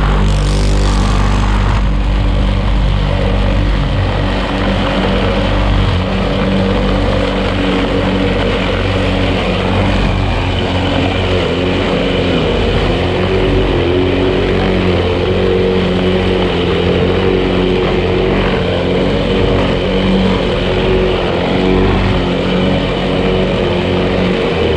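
Outils Wolf lawn mower engine running steadily under load while cutting tall grass, its pitch wavering slightly as it works.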